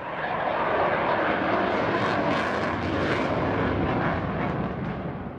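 Jet aircraft engine noise, a steady rushing sound that fades out near the end.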